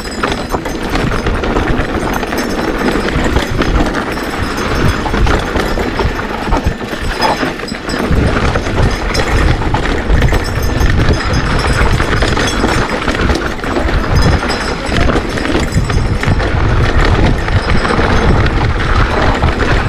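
Mountain bike riding fast down a rough dirt trail: tyres on dirt and the bike rattling over bumps, with wind buffeting the microphone as a gusting rumble that grows stronger about halfway through.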